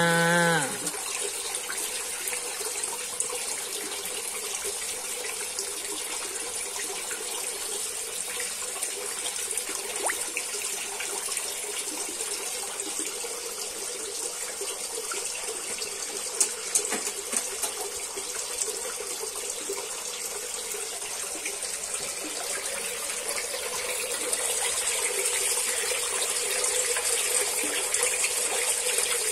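Water pouring from a pipe into a koi pond, splashing steadily. Two brief sharp sounds stand out a little past halfway. Near the end the splashing grows louder and brighter as the koi crowd and churn at the surface.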